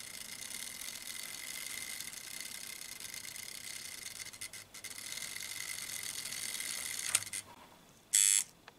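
Märklin H0 BR 23 model steam locomotive running on metal M-track: a steady high-pitched running noise of its motor and wheels, which fades out about seven seconds in. Near the end a short, loud, high-pitched beep, the loudest sound.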